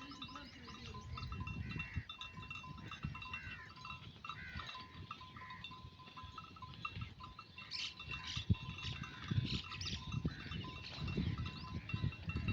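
A flock of Turkey dumba sheep bleating, with short calls scattered through, over a steady high trilling with rapid ticks in the background.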